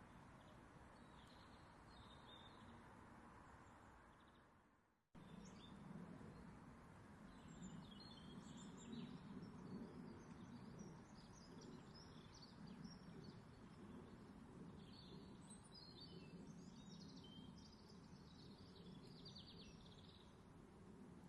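Near silence: faint background ambience with scattered faint bird chirps. It fades out to silence about five seconds in, then cuts back in.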